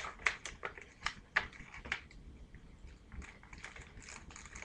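Paper and a plastic bag rustling and crackling as they are handled, with a few sharp crackles in the first two seconds and softer rustling after.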